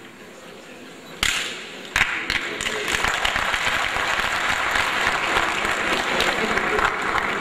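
A chamber of legislators applauding. A sharp knock comes about a second in, then the applause breaks out and carries on steadily.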